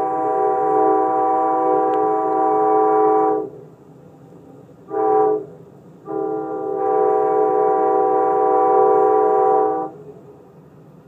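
Amtrak locomotive's multi-chime air horn, heard from the first passenger car behind it, sounding a long blast, a short blast about a second and a half later, and another long blast, a chord of several steady notes over the low rumble of the moving train. The long-short-long order is the close of the standard grade-crossing signal.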